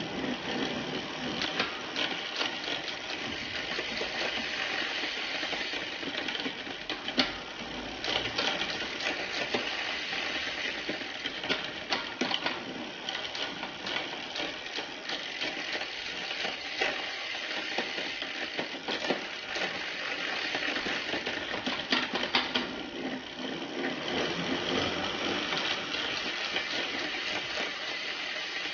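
Bicycle drivetrain with a Shimano Ultegra rear derailleur running: the chain whirs steadily over the spinning cassette and derailleur pulleys, with sharp clicks every few seconds as the chain shifts between sprockets.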